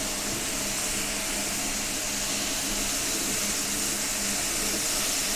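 Bacon and pineapple slices sizzling steadily on a hot gas griddle plate, an even frying hiss.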